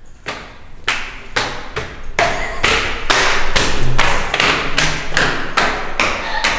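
Footsteps in flip-flops climbing tiled stairs: a steady run of slapping steps, a little over two a second, growing louder over the first few seconds.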